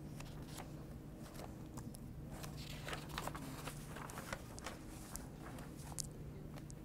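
Faint rustling and scattered light clicks of paper pages being handled and turned, over a low steady hum.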